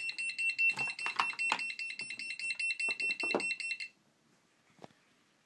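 Electronic alarm of a hobby battery charger beeping as a rapid train of high-pitched pips, stopping abruptly about four seconds in. A few light clicks and knocks of handling sound through it.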